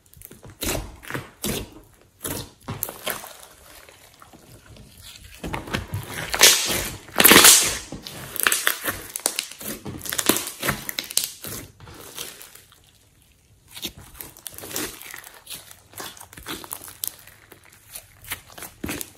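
Hands squeezing, folding and stretching a large batch of sticky mixed slime, giving a run of wet clicks and pops with squelching. It is loudest in a stretch about six to eight seconds in and goes briefly quiet around thirteen seconds.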